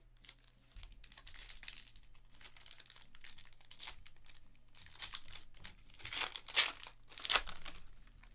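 Foil wrapper of a trading card pack crinkling and being torn open by hand, with a few sharp, louder rips near the end.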